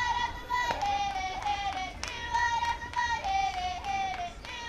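A group of young girls chanting a sing-song softball cheer in unison, with claps keeping the beat.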